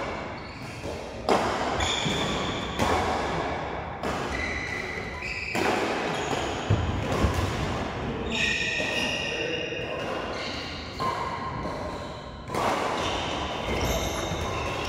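Doubles badminton rally: sharp racket hits on the shuttlecock every second or two, with short high squeaks of shoes on the court floor.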